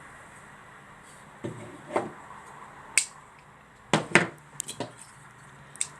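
Metal pruning shears being handled after a cut: a scatter of sharp clicks and clinks, about nine in all, the loudest near two and four seconds in.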